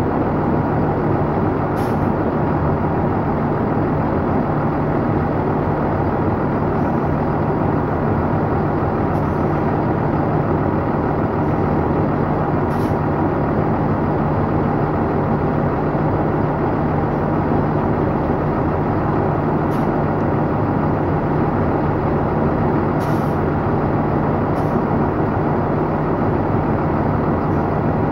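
A Thomas Saf-T-Liner C2 school bus's engine running steadily as the bus creeps forward at low speed, heard close up along the bus's side. A few faint high ticks sound now and then.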